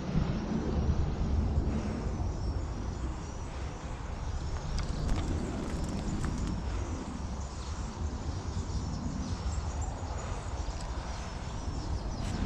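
Wind rumbling on the microphone, with handling and movement noise, faint high chirps and a few light clicks.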